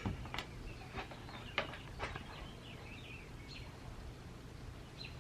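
A few small, sharp clicks and taps, with faint bird chirps in the background.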